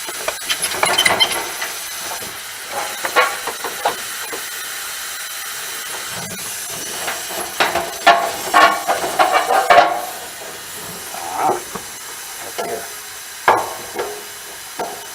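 Irregular metallic clanks, clicks and rattles as a dehumidifier's sheet-metal casing and parts are handled and taken apart, over a steady hiss. The clatter is busiest about eight to ten seconds in, with a single sharp knock near the end.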